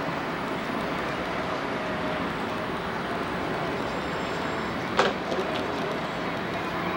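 Steady street and traffic noise, with one sharp knock about five seconds in and two fainter ones just after.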